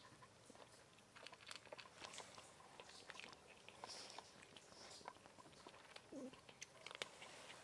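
Cat crunching dry kibble: faint, irregular crunches and clicks.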